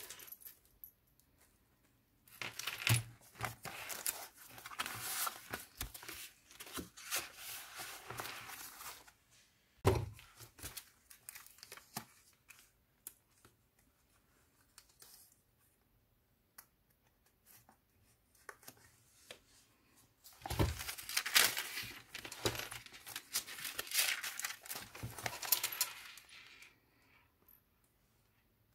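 Paper pages of a thick handmade junk journal being turned and handled: rustling and crinkling in two long stretches, with a knock about a third of the way in and another as the second stretch begins, and only faint handling between.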